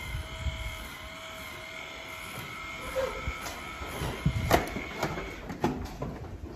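Handheld electric tool used to clean a dairy cow's tail, its motor running with a steady whine that fades out about five seconds in. Sharp knocks and clatters come in the second half.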